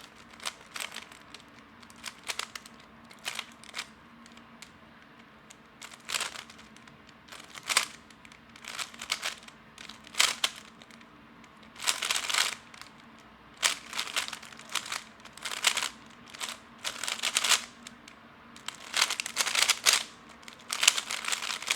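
A magnetic, lubed 3x3 speed cube being turned fast by hand during a speedsolve: quick bursts of plastic clacking layer turns, broken by short pauses, growing louder and denser in the second half.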